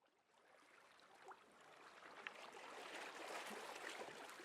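Faint water ambience fading in: a soft, even wash with scattered small ticks and drips, like water trickling and lapping.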